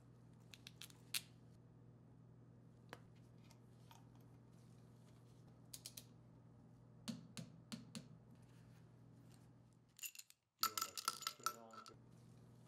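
Faint scattered metallic clicks of a ratchet and socket working on the pump's diaphragm screws, over a steady low hum. About ten and a half seconds in, a brief ringing jingle of steel bolts clinking together.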